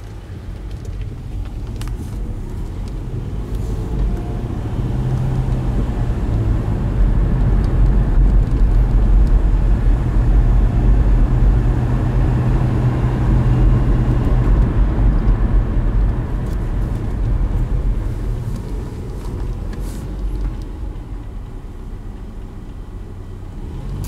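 A motor vehicle's engine hum, low and steady, growing louder over several seconds, loudest around the middle, then fading away.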